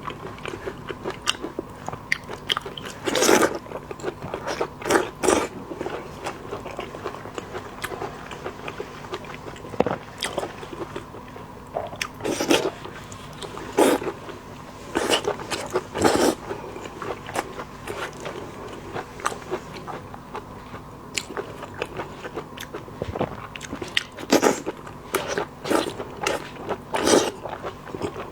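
A person eating seafood close to the microphone: steady chewing and biting, broken by louder crunchy bites about 3, 5, 12, 14, 16, 24 and 27 seconds in.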